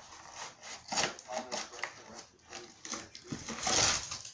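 Drinks and snack packages being handled and set into a mini fridge: scattered knocks and clicks, with a louder rustling noise near the end.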